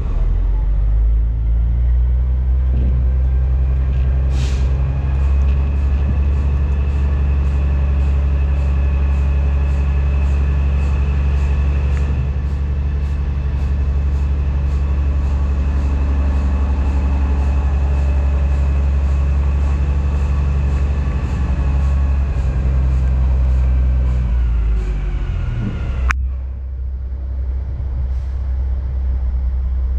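Heavy diesel engine of a dump truck pulling a pup trailer, running steadily with a deep drone and a faint regular ticking about twice a second. About 26 seconds in there is a sharp click, and the engine note drops off and quiets.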